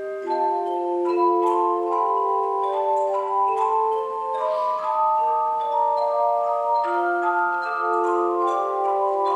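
Handbell choir ringing a piece: many overlapping, sustained bell tones forming chords that change as new bells are struck every fraction of a second.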